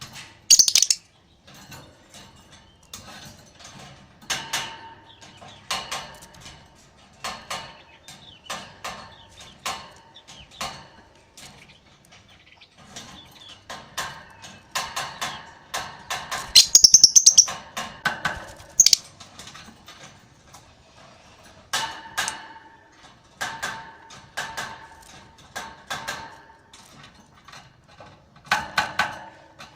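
Lovebird chirping in a run of short, repeated calls, with two louder shrill bursts, one about half a second in and another about halfway through.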